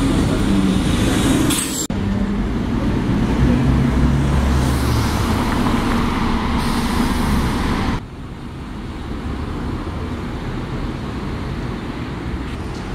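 Bus engine and road traffic on a city street: a double-decker bus pulls away close by, then more bus and car engine noise with a rising spell, then quieter passing traffic. The sound changes abruptly twice, just under two seconds and about eight seconds in.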